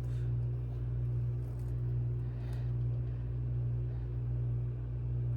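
Steady low electrical hum, even in pitch and level throughout.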